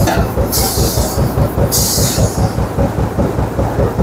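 Automatic high-speed double-line PE T-shirt bag making machine running, with a rapid, even beat of about five strokes a second. Two short hisses come in the first couple of seconds.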